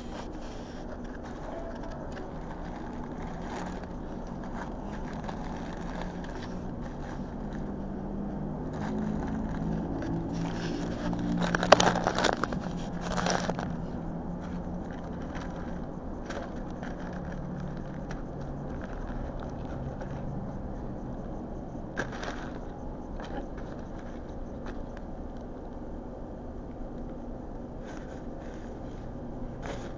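Paper food wrappers rustling and crinkling now and then as fast food is handled, loudest in a short burst about twelve seconds in, over a steady background rumble.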